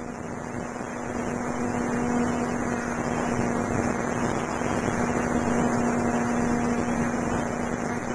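Electric motor and propeller of an FPV model aircraft running at a steady pitch, heard as a constant hum over a hiss.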